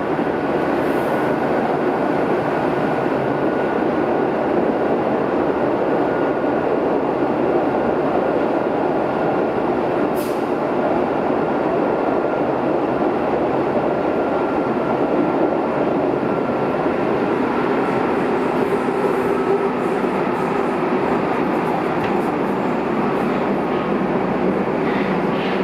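Interior of a Berlin U-Bahn F87 subway car running in the tunnel: a steady, even rumble of wheels on rail and running gear, with a faint whine that drifts slightly lower in pitch. A few light clicks come through, one about ten seconds in and several more near the end.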